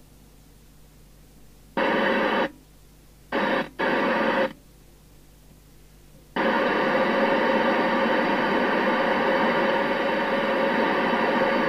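Midland 76-900 FM CB base station receiving, with static hiss from its speaker: three short bursts of hiss in the first few seconds, then steady hiss from about six seconds in while the channel selector is turned up through the channels.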